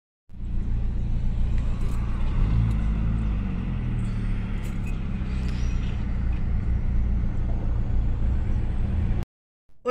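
Street traffic: a steady low car-engine hum, with a car driving past about three seconds in. The sound cuts off suddenly near the end.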